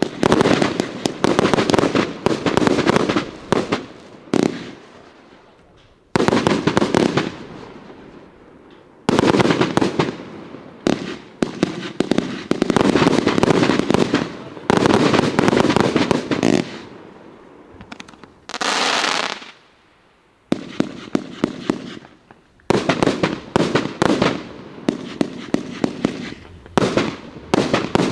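Riakeo Peking Opera 3X firework cake, a 241-shot barrage of 20 to 30 mm tubes, firing dense volleys of shots in runs broken by short lulls. A brief rushing hiss comes about two-thirds of the way through.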